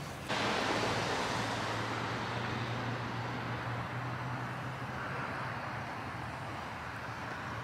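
Street traffic: a steady hiss of tyres on the road with a low engine hum under it, slowly fading.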